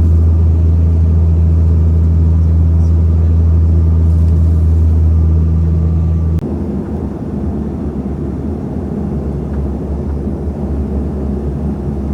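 Propeller plane's cabin drone: a loud, steady, low hum. About halfway through it changes suddenly to a quieter, rougher rumble.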